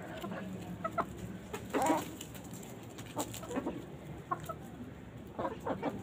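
Chickens clucking: short, scattered clucks from several birds at irregular intervals, the loudest about two seconds in and a quick run of them near the end.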